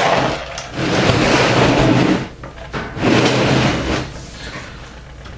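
Power supply cables being pulled and pushed through a PC case, scraping and rustling against the case in three loud stretches.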